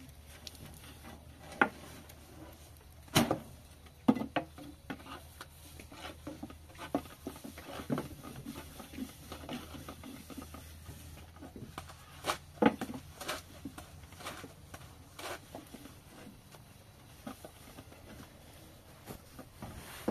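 Irregular light knocks and taps, with the sharpest clacks about three seconds in and twice around twelve seconds in, over a faint steady low hum.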